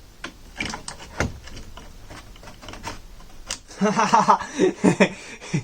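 Scattered light clicks and taps of small parts being handled, then near the end a short stretch of indistinct muttering.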